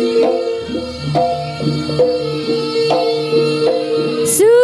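Javanese jaranan gamelan music played live: kendang drum strokes over a low pulse and a steady held metallophone tone. A shrill sliding melodic line, a reed or voice, comes in near the end.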